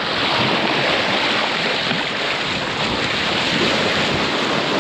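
Sailboat's bow cutting through open sea: a steady rush and splash of the bow wave along the hull, with wind buffeting the microphone.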